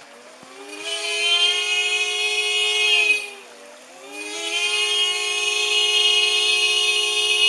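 Car horn sounding by itself on a car standing in floodwater, a long sustained blare. Its pitch slides up as it starts about half a second in, sags and breaks off around three seconds, then slides back up and holds again from about four seconds in.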